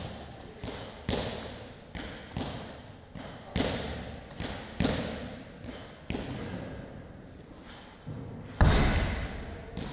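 Wall-ball reps: a medicine ball thuds against the wall target and is caught, about once every 1.2 seconds. Near the end the ball is dropped onto the rubber floor with a louder thud.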